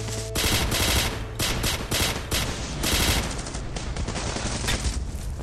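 A firefight of rapid automatic rifle fire in bursts of many shots, heaviest in the first three seconds and sparser after.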